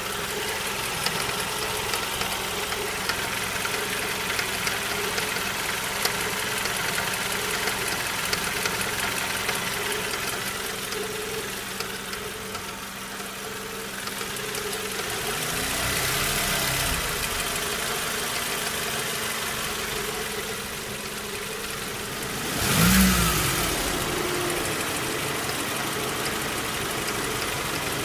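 Warm Suzuki J24B 2.4-litre four-cylinder engine idling with a light ticking, the extraneous noise it is being checked for. The throttle is blipped twice, about halfway through and again about three quarters in, the second rev sharper and louder.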